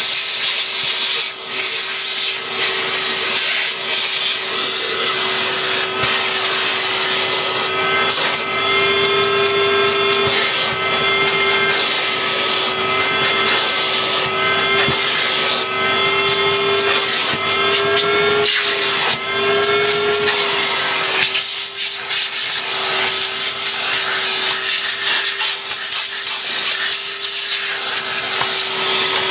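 Vacuum cleaner running with a steady whine that wobbles slightly in pitch, its plastic crevice tool sucking and scraping dust off plastic cyclone parts and a filter pad.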